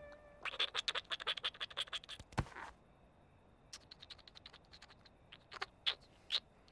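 A baby lamb sucking on a dummy (pacifier), making quick little clicking sucks. They come fast for about two seconds, then slow to scattered clicks.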